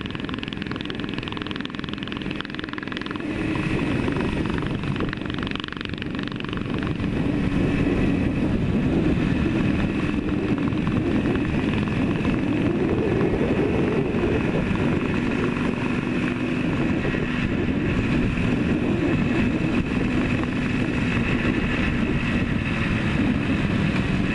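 Yamaha RD400's two-stroke parallel-twin engine running under way on the road, its note climbing and easing back around the middle as the throttle is worked, over a steady rush of wind.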